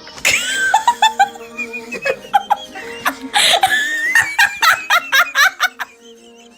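Bursts of giggling laughter, short and high-pitched, over background music, fading toward the end.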